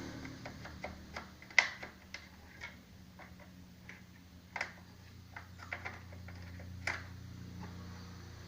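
Irregular clicks and taps of RAM modules being handled and pushed into the memory slots of a desktop PC, with louder clicks about a second and a half, four and a half and seven seconds in, over a steady low hum.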